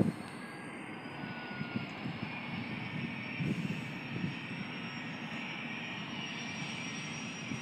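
Twin turbofan engines of a Learjet 75 running on the ground: a steady rush of jet noise with a thin high whine that slowly rises in pitch.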